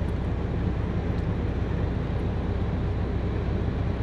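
Steady driving noise heard from inside a moving van's cab: a constant low engine and road rumble with tyre hiss, unbroken throughout.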